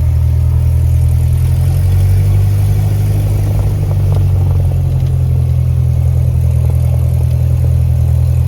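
Cessna 172's piston engine and propeller running steadily, swelling slightly about two seconds in and easing back a few seconds later.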